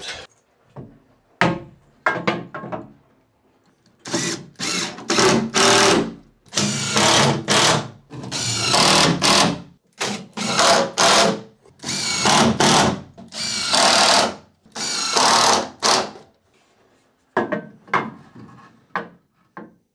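Power driver driving wood screws through a timber stud into the wall framing, in a run of short bursts of under a second each from about four seconds in, with a few shorter bursts near the end. A few light knocks come before the driving starts.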